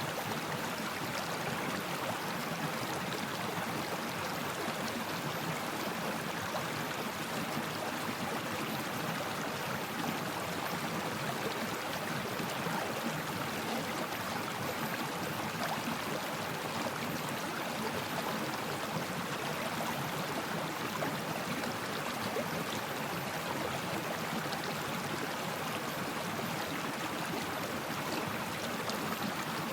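Stream water flowing steadily, an even continuous rush with no change in strength.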